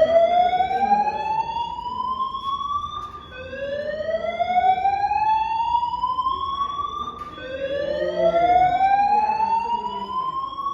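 Building fire alarm sounding a slow-whoop evacuation tone: a rising sweep that climbs for about four seconds, then drops back and climbs again, three times over. The resident thinks a burst water pipe set it off.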